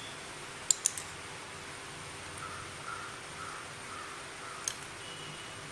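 Quiet kitchen room tone with a steady low hum, broken by light clinks of metal utensils: two just under a second in and another near the end. A faint run of about five short, evenly spaced calls comes in the middle.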